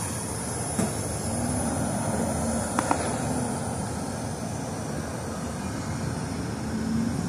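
Steady mechanical rush and low hum of rooftop air-conditioning equipment running, with two faint clicks a little under three seconds in.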